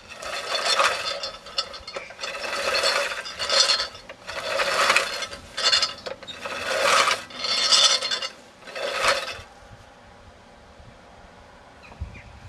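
Over-80-year-old Brill push reel lawn mower cutting grass: the spinning reel blades make a whirring, ratcheting sound in a series of pushes about a second long each, stopping about nine seconds in.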